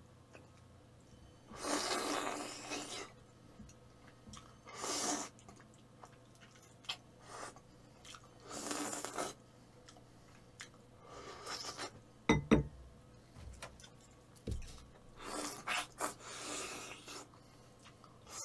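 A person slurping wide kalguksu noodles coated in black bean sauce: five long hissing slurps spread through the stretch, with quieter chewing between them. A couple of sharp knocks about twelve seconds in are the loudest sounds.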